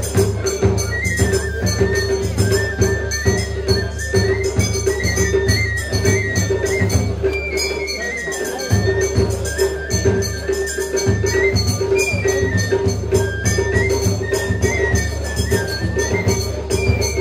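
Traditional Japanese festival hayashi music: a high flute plays a stepping melody over steady drum and metal percussion beats.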